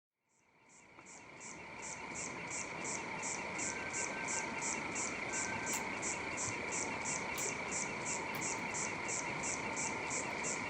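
A chorus of calling frogs and insects fades in over the first two seconds, then runs steadily. A high, pulsing call repeats about three times a second over a continuous trilling drone.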